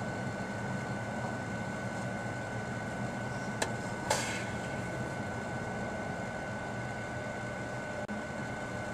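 Microwave oven running steadily with a batch of ink cartridges inside, a constant hum with a thin whine. Two sharp snaps come about half a second apart, roughly four seconds in, the second louder.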